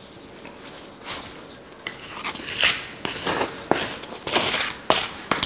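Gloved hands working crumbly shortcrust pastry dough on plastic film: plastic gloves rustling, the dough squishing, and a plastic scraper scraping through it. The sound is irregular, with several louder scrapes in the second half.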